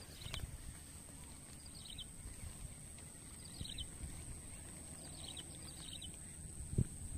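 A small bird chirping faintly, about five short high chirps spaced a second or so apart, over a low rumble of wind on the microphone. A soft knock sounds near the end.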